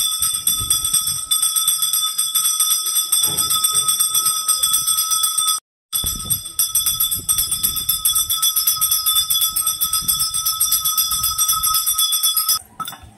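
Brass temple puja bell rung rapidly and continuously during the lamp offering (aarti), a steady shimmering ring that cuts out briefly about halfway through and stops just before the end.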